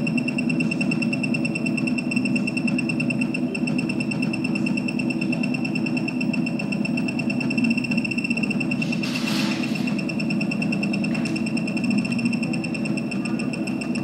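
Alpha automatic key cutting machine milling a car laser key: the spindle motor runs with a steady high whine over a dense lower cutting hum, with a short burst of hiss about nine seconds in.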